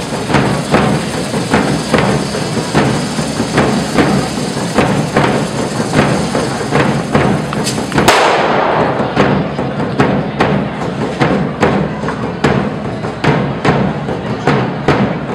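A large festival drum (tabal) beating a steady dance rhythm, about two to three strokes a second, for the devils' dance. One much louder bang cuts in about eight seconds in.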